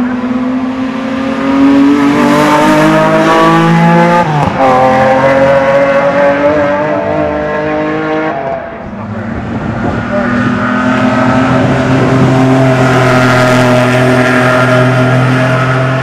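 Modified time-attack race cars at full throttle on a circuit. The engine note climbs, falls sharply about four seconds in like an upshift, and climbs again. After a brief dip near the middle, a strong engine note rises slowly once more.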